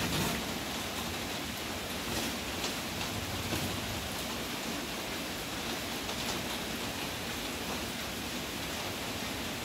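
Steady rain falling, an even hiss throughout, with a few faint taps.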